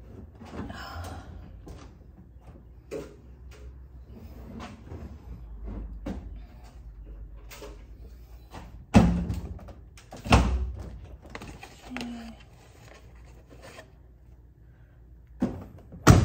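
Indoor handling noises: scattered clicks and knocks, with two loud thumps about nine and ten seconds in and another at the end, over a low hum.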